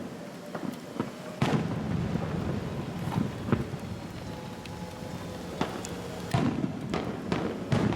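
Aerial fireworks shells bursting, a series of booms with rolling echoes between them. The strongest burst comes about one and a half seconds in, and a quick cluster of bursts comes near the end.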